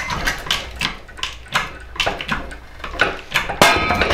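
Metal clicks and knocks from working on a seized crane part, with one sharp crack about three and a half seconds in as it breaks loose; it sounds seized.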